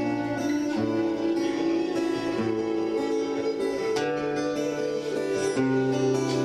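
Instrumental song intro: a plucked string melody over held bass notes that change every second or so.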